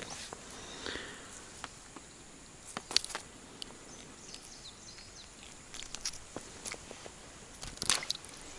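Faint outdoor background with scattered light clicks and taps, a few of them louder about three seconds in and near the end.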